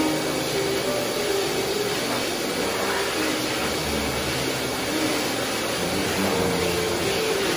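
High-velocity pet grooming dryer blowing a steady rush of air through its hose and nozzle onto a wet dog's coat.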